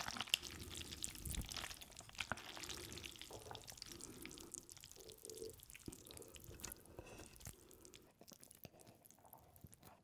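Faint, wet, sticky sounds of jjajang ramyun noodles coated in thick black-bean sauce, with many small clicks, fading toward the end.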